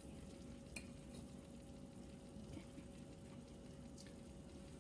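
Near-silent room tone with a steady low hum, broken by two faint clicks, one about a second in and one near the end, as a metal fork taps the dish while food is scooped.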